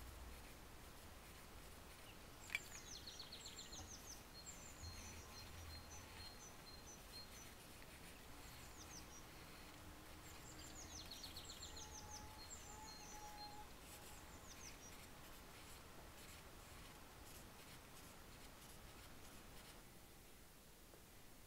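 Faint birdsong over near-silent room tone: a small bird repeats phrases of quick falling chirps and a short trill, in two bouts. A single sharp click comes a few seconds in.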